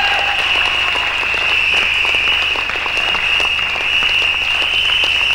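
Audience applauding steadily, dense clapping with no break, with a steady high-pitched whine running underneath.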